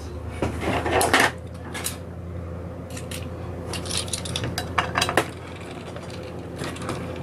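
Screwdriver working at a very tight screw in a thin sheet-metal scale load plate: scattered metallic clicks and scrapes as the tip grips and slips, and the screw does not come loose.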